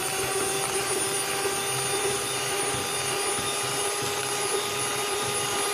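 Electrolux electric hand mixer running steadily at top speed, its beaters whipping eggs with sugar and cake emulsifier into a pale, fluffy foam for a sponge-style cake. A constant motor hum with a high whine.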